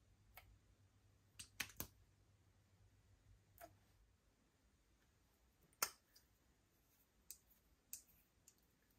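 Faint, scattered clicks and taps of plastic makeup packaging being handled: a lip gloss tube and its wand, then a lipstick. There are about nine separate clicks; the sharpest comes about two-thirds of the way through.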